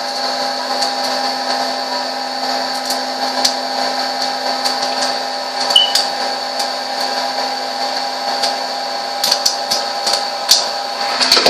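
Electric popcorn machine running with a steady motor hum, and a few sharp pops of kernels that come more often towards the end as the corn starts popping.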